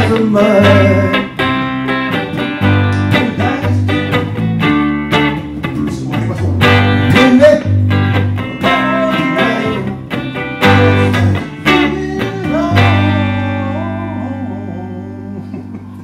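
Electric guitar strumming a blues-soul accompaniment while a voice sings over it. The song ends on a final chord about 13 seconds in, which rings and slowly fades away.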